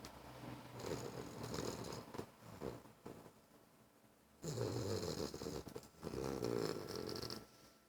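English bulldog snoring, short-muzzled breed: a series of rattling snoring breaths, with a quiet pause of about a second a little before the middle, then two strong snores.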